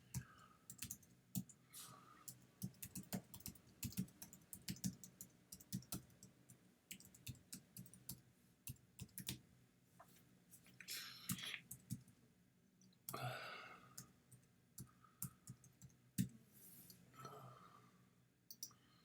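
Faint typing on a computer keyboard: quick runs of key clicks for about the first ten seconds, then only a few scattered clicks.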